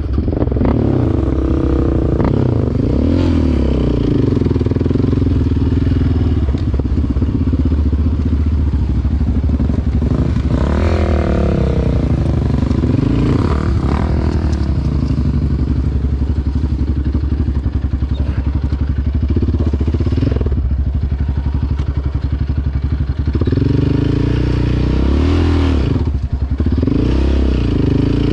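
ATV engine being ridden on a trail, its revs rising and falling again and again as the throttle is worked, with an occasional knock or rattle from the machine over rough ground.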